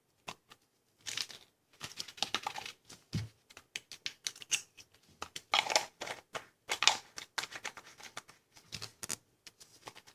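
Irregular clicks, taps and rustling from small objects being handled, with a single dull thump about three seconds in.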